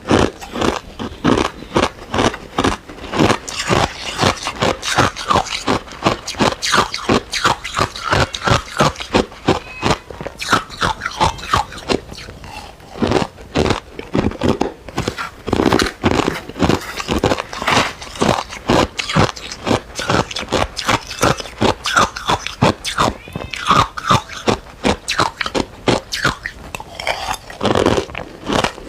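Ice cubes being bitten and chewed: a dense, continuous run of sharp crunches and cracks, several a second, with short lulls between bites.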